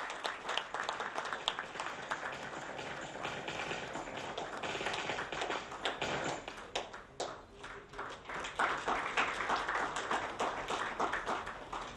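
Audience applauding: a round of hand claps that thins out about halfway through and picks up again.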